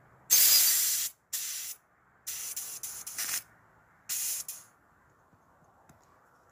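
Pressurised green gas hissing at the valve of an airsoft pistol's gas magazine in four short bursts, the first the loudest and the third fluttering.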